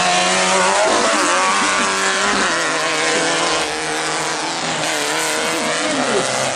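Engines of off-road racing buggies running hard on a dirt track, their note shifting up and down as they rev. The sound grows a little quieter about halfway through as the buggies pull away.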